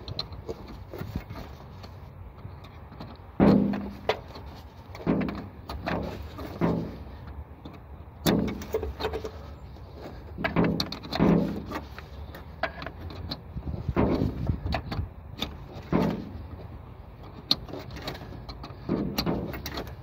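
An open-end wrench clinking and knocking against a new A/C high-pressure switch and its metal refrigerant line while the switch is screwed on and lightly tightened. The knocks come in an irregular string of short metallic taps over a steady low rumble.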